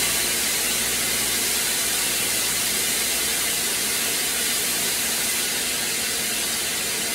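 Loud, steady rushing hiss from equipment venting in the plant room, strongest in the high range.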